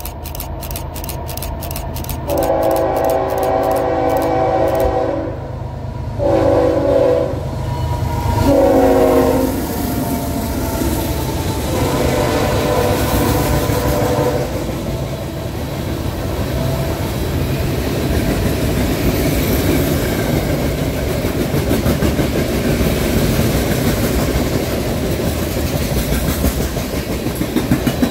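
Diesel freight locomotive sounding its air horn in several blasts, long and shorter, for the grade crossing; the horn's pitch drops as the locomotive passes. A low engine rumble runs under the horn until then, and the rest is the steady rumble and clatter of the freight cars' wheels rolling past on the rails.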